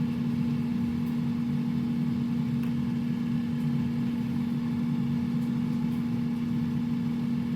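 Air fryer running near the end of its cooking cycle: a steady fan hum with one strong low tone.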